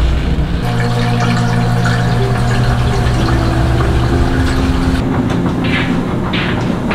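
Laundry machine running: a steady motor-and-pump hum with tones that shift in steps, and a few short hissy strokes in the last two seconds.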